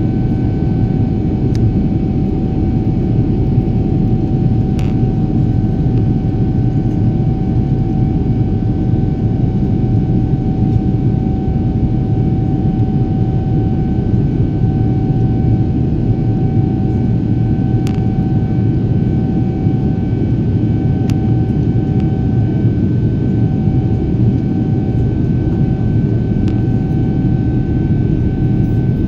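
Jet airliner cabin noise during the climb after takeoff: a dense, steady rumble of engine and airflow heard from inside the cabin, with a thin, steady high whine over it.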